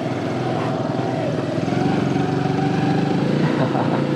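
Small 115cc cub motorcycle engine running steadily as the bike rides along, getting a little louder about two seconds in.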